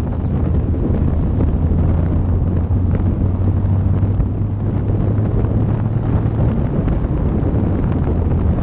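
Kit car driving on the road: a steady low engine and road drone heavily buffeted by wind on an exposed rear-mounted microphone. The drone drops slightly in pitch about six and a half seconds in.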